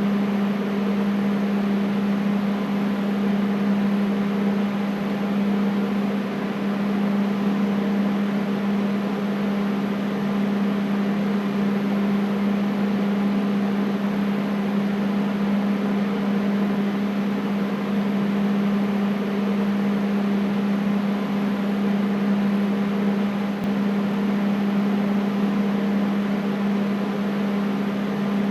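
Air conditioner running steadily: a low hum with an even rush of moving air, unchanging throughout.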